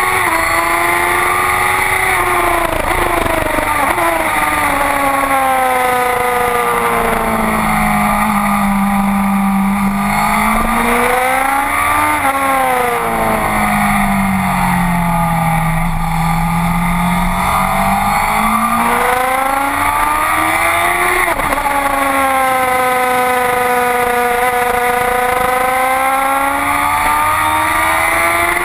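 Honda CBR sportbike engine heard from onboard, with wind rushing over the microphone. It climbs in pitch through the gears, falls away as the bike slows for a corner, gives a sharp blip about twelve seconds in, sinks low through a long bend, then climbs again on the way out.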